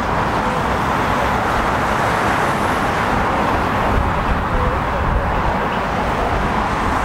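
Steady roar of passing road traffic, mixed with the low-thrust whoosh of a Eurofighter Typhoon's twin jet engines as it taxis away.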